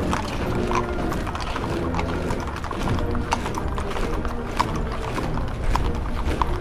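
Military parade: horses' hooves clip-clopping in many irregular sharp clicks, over a band playing and a low rumble.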